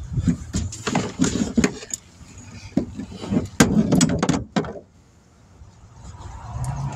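Irregular knocks, clicks and clatter of tools and an air hose being handled while setting up to inflate a small camper-trailer tire, stopping about two-thirds of the way through. A low steady motor hum sets in near the end.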